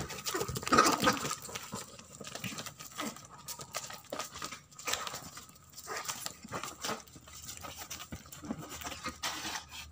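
Two cats fighting: irregular short snarls and scuffles, loudest about a second in.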